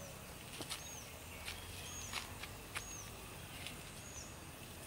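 A small animal calling: short, high chirps that rise and drop, repeating about once a second, mixed with sharp ticks, over a faint low steady rumble.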